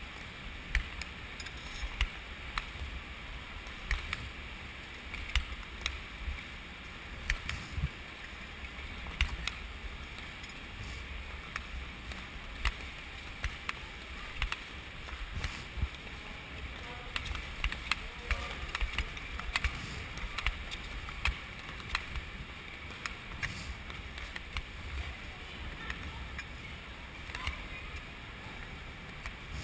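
Ice skate blades on the rink ice with each skating stroke: a sharp click or scrape roughly every second and a half, over a steady rush of wind rumble on the microphone.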